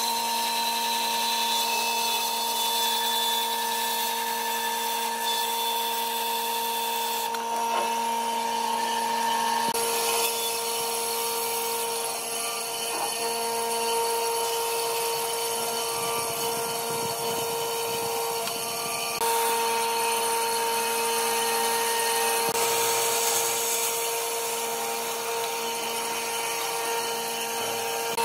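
Bandsaw running with a steady motor hum, its blade cutting through thick wooden blocks along curved table-leg profiles.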